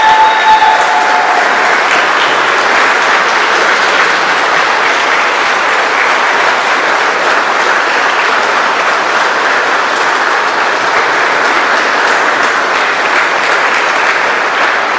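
Church congregation applauding steadily, many hands clapping together.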